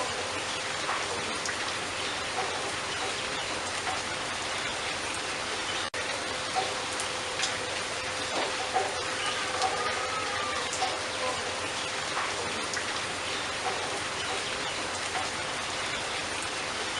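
Steady hiss with scattered light ticks, like rain pattering on a surface, with a few faint short bird chirps now and then. The sound drops out for an instant about six seconds in.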